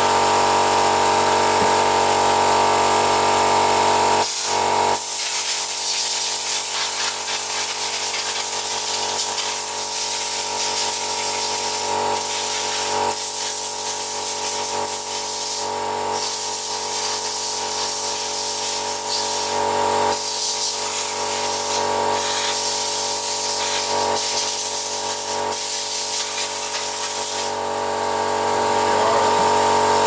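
Brake cleaner hissing from a hand-pumped, refillable spray bottle in long sprays with short breaks, over a steady hum.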